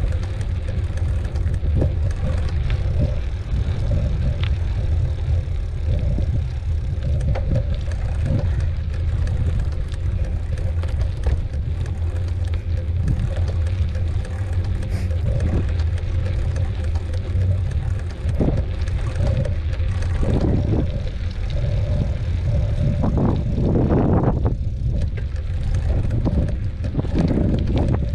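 Mountain bike being ridden on a dirt trail: a steady low rumble of tyres and wind on the microphone, with frequent short rattles and knocks from the bike.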